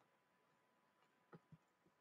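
Near silence: faint room tone with a thin steady high hum, and two soft clicks a little past halfway.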